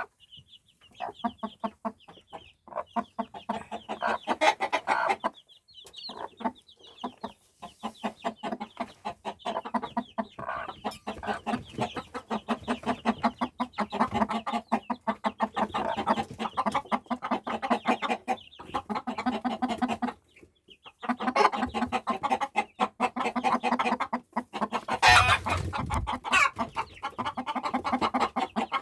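A broody hen clucking in rapid, repeated calls with her newly hatched chicks peeping high and thin. The calling is nearly continuous, with a louder outburst about 25 seconds in.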